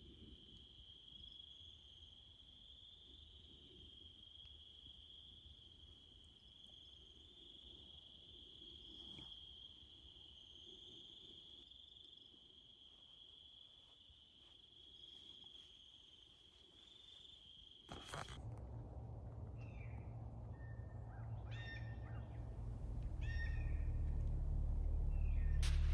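Night-time insect chorus: a steady, unbroken high trill. About eighteen seconds in it cuts off abruptly. A low rumble follows and grows louder toward the end, with a few short bird chirps over it.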